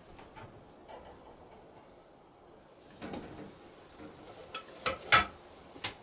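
A few short clicks and knocks of objects being handled on a wooden table, with a soft clatter about three seconds in and a cluster of sharper knocks near the end, the loudest about five seconds in.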